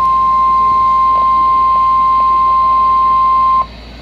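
NOAA Weather Radio 1050 Hz warning alarm tone: one steady, high-pitched tone that cuts off abruptly about three and a half seconds in, leaving only radio hiss. The tone signals that a warning broadcast, here a severe thunderstorm warning, follows.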